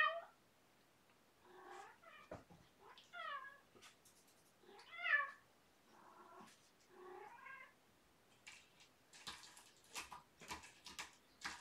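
A domestic cat meowing, about six short meows with bending pitch spread over the first eight seconds, followed by a run of light scratchy clicks near the end.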